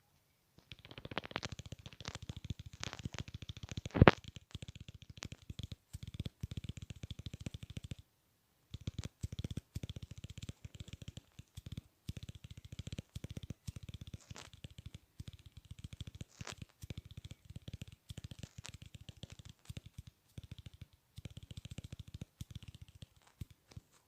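Rapid, close-miked ASMR clicking sounds, many clicks a second. One click about four seconds in is much louder than the rest, and the clicking pauses briefly about eight seconds in.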